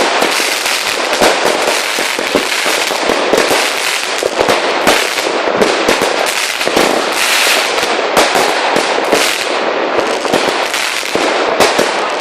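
Lesli Black Out firework going off: a dense, unbroken stream of rapid cracks and bangs that keeps going without a pause.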